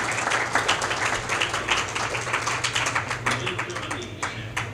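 Audience applauding, thinning to a few last separate claps near the end.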